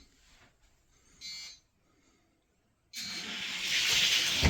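A short electronic beep, then two small die-cast derby cars rolling down a gravity race track for about a second and a half, growing louder and ending in a sharp knock as they hit the stop at the finish.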